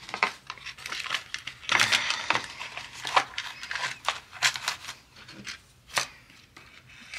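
Small plastic diamond-painting tools being pushed into a paper kit pouch: irregular crinkling and rustling of the pouch with small plastic clicks and taps, busiest about two seconds in, and one sharp click about six seconds in.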